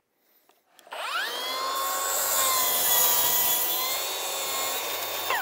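Milwaukee M18 cordless track saw spinning up about a second in with a quickly rising whine, then running steadily as it cuts through a wood sheet, winding down in pitch near the end.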